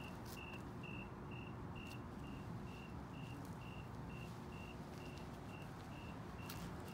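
Faint high-pitched chirps, repeating steadily about twice a second, over a low background hiss.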